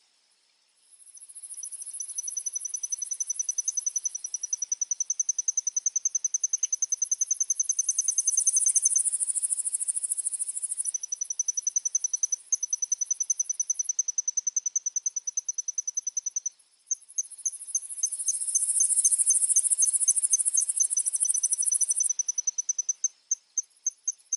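Insects calling: a fast, high-pitched cricket trill with a still higher buzzing insect that swells and fades in waves. In the second half the trill slows into separate chirps, about three a second.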